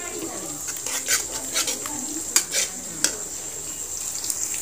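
Flat metal spatula stirring and scraping a thick masala around a metal kadhai, with irregular clinks and scrapes against the pan. Under them runs a steady sizzle of the masala frying in oil.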